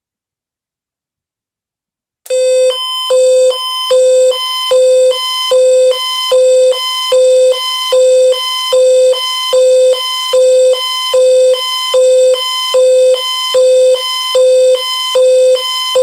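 Silence, then about two seconds in a loud, buzzy electronic alert beep starts, pulsing evenly a little more than once a second. It is the attention tone that opens an Amber Alert relay on AM radio.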